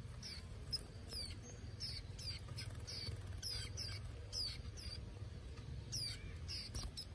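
Caged young white-eyes chirping: thin, high, short calls, each a quick falling note, about two a second, over a faint steady low hum.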